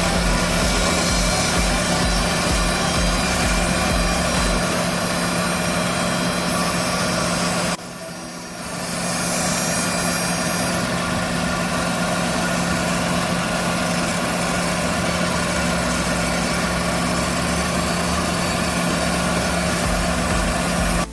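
Small car engine of an All New Matiz idling steadily, with a brief dip in level about eight seconds in.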